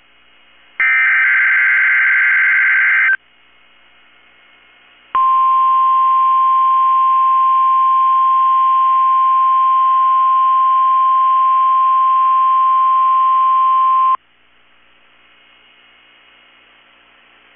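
Weather radio emergency alert signals: a burst of about two seconds of SAME digital header data tones, then, after a short pause, the steady single-pitch 1050 Hz warning alarm tone for about nine seconds. Low radio hiss fills the gaps and the end.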